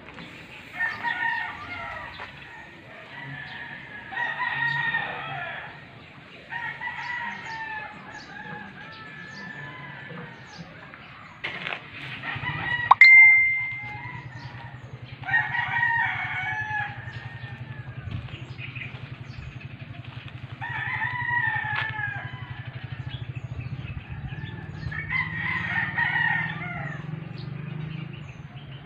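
Rooster crowing repeatedly, about six long crows spread through, with some clucking. About halfway through comes a loud knock with a short ring, and after it a low steady hum runs on.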